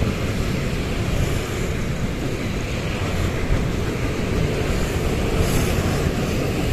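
Steady outdoor noise of city traffic and wind buffeting the microphone, a low rumble with no distinct events.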